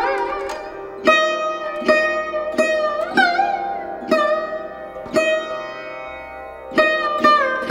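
Background music: a plucked string instrument playing slow single notes, about one a second, each ringing out and some bending in pitch.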